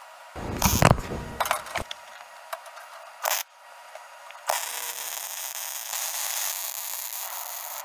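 MIG welder arc laying a weld on a steel tube frame: a steady hiss that starts a little past halfway through. Before it, a few knocks and scrapes of handling the welding gun and frame.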